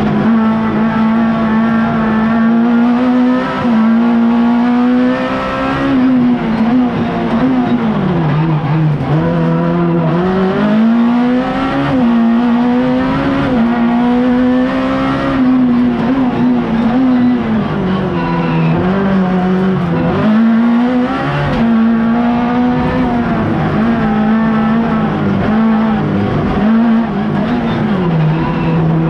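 Race car engine heard from inside the cockpit, held at high revs, with the revs dropping briefly a few times and climbing again as the car accelerates out of each slow section.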